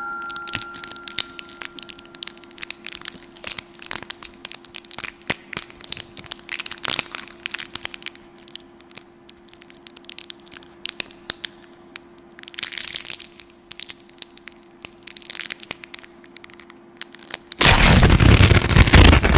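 Irregular crackling and clicking over a faint steady hum, then a loud rush of noise near the end that cuts off abruptly.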